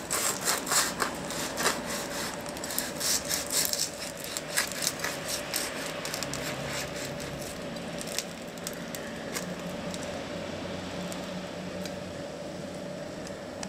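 Knife sawing through the crisp baked crust of a tandoor samsa, with crackling, scraping strokes during the first four seconds or so. After that come quieter, sparser sounds as the pastry is pulled open, over a steady low hum.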